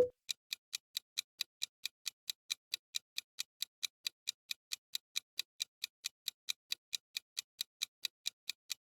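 Clock-ticking sound effect, a quick even tick about five times a second, counting down the time to guess a quiz answer.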